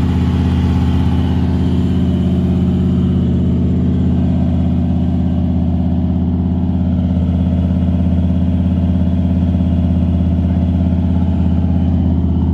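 SN95 Mustang GT's V8 engine running steadily at an even pitch, just after being started by touching wires together.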